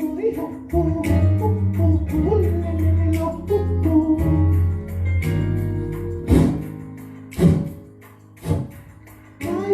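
Church-style music with bass, guitar and a steady beat, with some singing; the bass drops out about halfway through, leaving louder beats about once a second.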